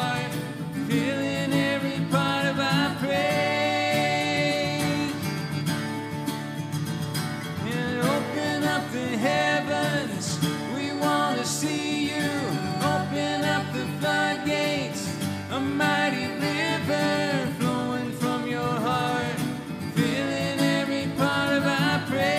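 Worship song played on two acoustic guitars, strummed steadily, with a woman singing the melody.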